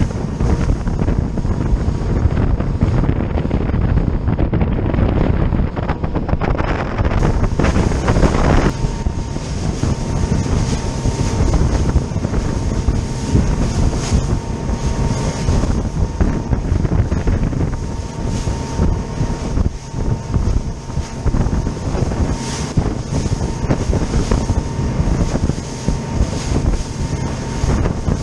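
RIB running at speed through chop: heavy wind buffeting on the microphone over the engine's drone and the hull slapping and hissing through spray. A louder rush of spray comes about seven seconds in, and a steady high engine tone runs from about nine seconds on.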